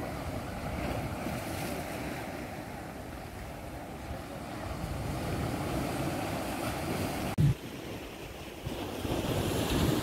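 Small ocean waves washing onto a sandy beach, with wind blowing across the microphone. A single brief low thump from the wind buffeting the microphone about seven seconds in.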